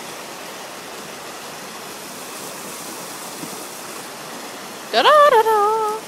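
Rushing whitewater in a kayaking channel, a steady hiss. About five seconds in comes a loud, drawn-out call from a high voice that rises and then holds for about a second.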